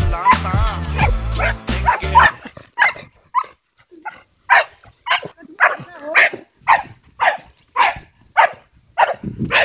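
Leashed dogs barking aggressively at another dog: after about two seconds of loud low rumble and wavering whines, a steady run of sharp barks, about two a second.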